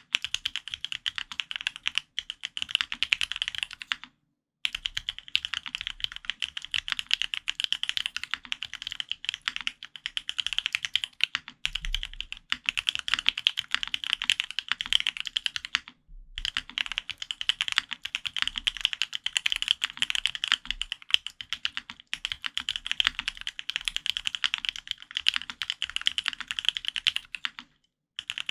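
Fast typing on a custom mechanical keyboard: an F1-8X with a polycarbonate case, gasket-mounted FR-4 plate and Gateron Ink Black v2 linear switches lubed with Krytox 205g0. Keystrokes come in dense runs, with brief pauses about 4 and 16 seconds in and again near the end.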